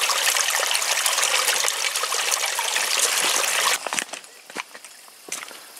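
Small rocky creek trickling and splashing over stone ledges close by, a dense, steady rush that cuts off abruptly a little over halfway through. A few faint short knocks follow.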